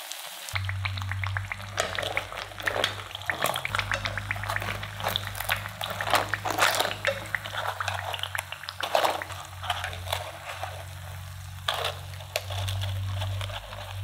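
Potato cakes deep-frying in hot oil: a dense crackle of bubbling with many small pops, and sharper clicks as chopsticks and a wire skimmer lift the cakes out. A steady low hum runs underneath.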